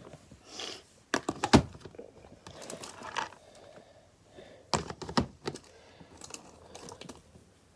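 Small plastic fidget toys being handled and set down: sharp clicks and knocks in two clusters, about a second in and again about five seconds in, with light rustling between.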